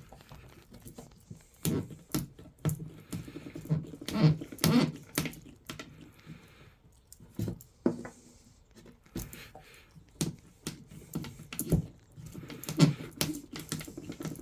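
Irregular knocks, clicks and rubbing from hands working softened PVC pipe plugs in a workbench's dog holes as they cool and stiffen.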